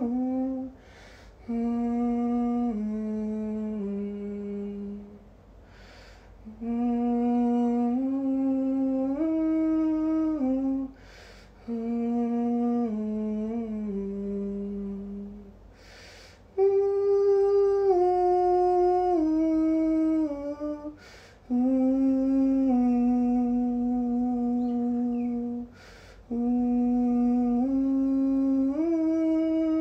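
A man humming a wordless vocal harmony line in held notes that step up and down, in six phrases of a few seconds each with breaths between them. It is a harmony layer being recorded as a second vocal track.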